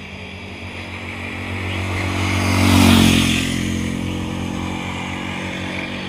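A motorcycle driving past on the road: its engine grows louder as it approaches, is loudest about halfway through, then fades as it moves away.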